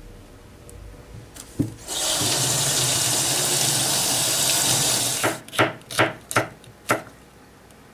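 Kitchen tap running into a stainless-steel sink for about three seconds while a hand is rinsed under it, then shutting off. Then a ceramic knife slices green pepper on a plastic cutting board, about five quick knocks on the board.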